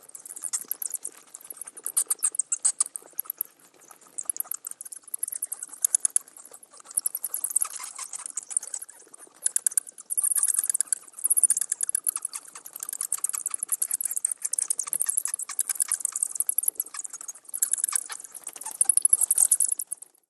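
Bats chattering: dense trains of rapid, high-pitched clicks and squeaks that come in bouts, swelling and fading every few seconds.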